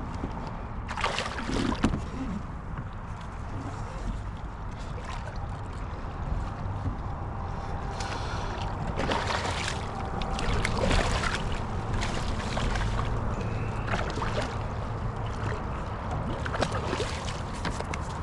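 Water sloshing and splashing against a kayak in a strong current, in irregular bursts over a steady low rumble.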